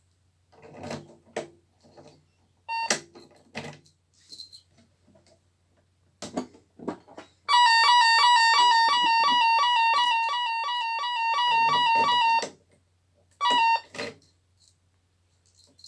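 Alarm control panel's electronic buzzer beeping: a few short single beeps, then a fast run of beeps lasting about five seconds in the middle, and one more short beep near the end. Clicks and knocks between the beeps.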